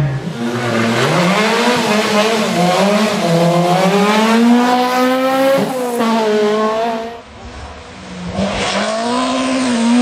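Rally car engine at full throttle, its pitch climbing and dropping back several times, with a dip in loudness about seven seconds in before it picks up again.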